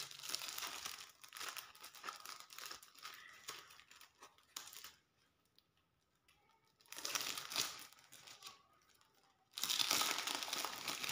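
Thin clear plastic packet crinkling as hands handle and open it and slide out a sheet of magnet stickers. It goes in spells, falling silent for about two seconds in the middle, and is loudest again near the end.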